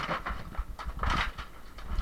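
Irregular knocking and clattering from demolition of interior wall partitions.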